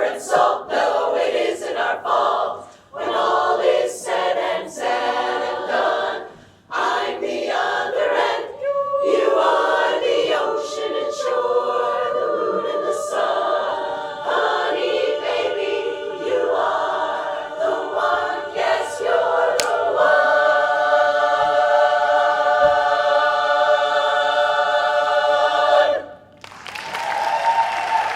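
Women's a cappella barbershop chorus singing the closing phrases of a song, ending on a long, loud sustained chord that cuts off together. Near the end the audience breaks into applause and cheering.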